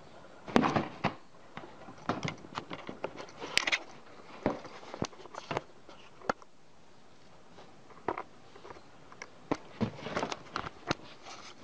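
A cat biting and licking at a thin wire right at the microphone: irregular clicks, crunches and short scratchy rustles, loudest about half a second in and again around three and a half seconds.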